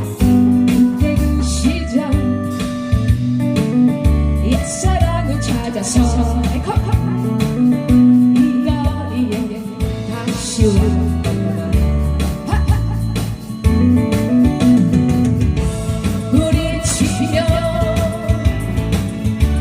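Trot medley music with a steady drum beat, a repeating bass line and electric guitar, with a singing voice over it in places.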